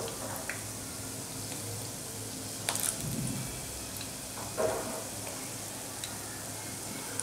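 Gulab jamun balls deep-frying in oil on a low flame, a steady gentle sizzle. A steel slotted spoon nudging the balls in the pan makes a couple of short clicks and scrapes, about a third and two thirds of the way in.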